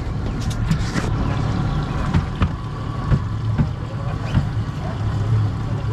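Twin 200 hp Yamaha four-stroke outboard motors running, a steady low drone, with occasional short knocks.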